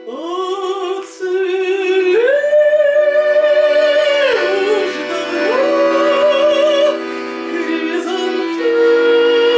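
Solo singing: one voice entering at the start and holding long notes with vibrato over sustained accompaniment chords.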